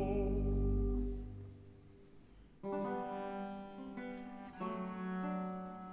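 The last sung note and the continuo chord under it fade out; after a brief pause, a guitar strums a chord over a sustained cello bass, then another about two seconds later: baroque continuo accompaniment.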